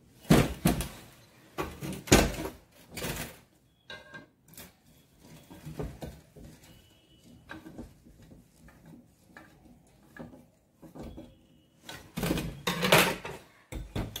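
Handling noise of fitting a heater element: a screwdriver, nut and bolt knocking and scraping against the room heater's metal body and ceramic element plate in short irregular clatters. The clatters are loudest just after the start and again near the end.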